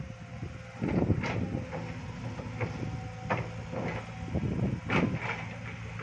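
Excavator's diesel engine running steadily while it digs, with a series of irregular knocks and clanks as the bucket works in the earth and stones, the loudest about a second in and near the end.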